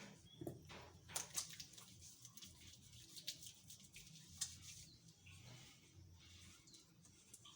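Faint clicks and rustling with a few brief, high squeaks from newborn piglets in a farrowing pen, over a low steady hum.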